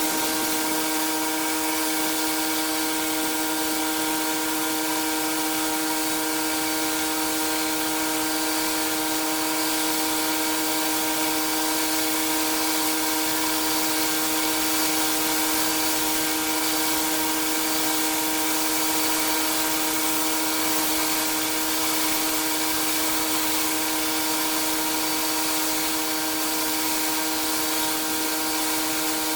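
Pressure washer running steadily, a constant humming tone under the hiss of its high-pressure water spray.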